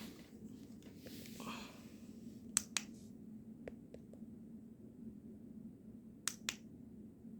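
Two pairs of sharp clicks or snaps, each pair about a fifth of a second apart: the first about two and a half seconds in, the second about six seconds in. A few fainter ticks and a soft rustle come between them, over a faint steady low hum.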